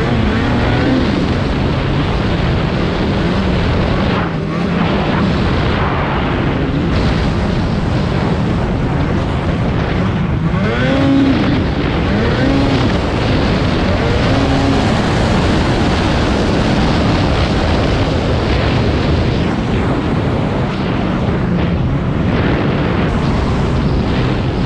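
Polaris Switchback Assault snowmobile's two-stroke engine running steadily while the sled is ridden along a packed trail. The engine's pitch rises and falls a few times about ten to thirteen seconds in.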